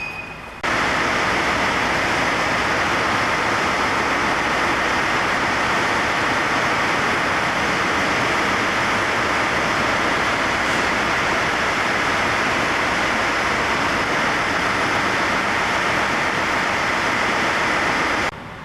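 Loud, steady rushing noise with no tone in it; it cuts in abruptly about a second in and cuts off just as abruptly near the end.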